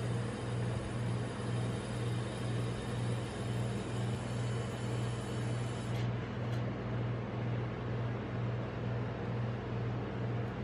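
Steady motor hum of a rolled-ice-cream cold plate's refrigeration compressor, with a low tone that swells and fades about twice a second.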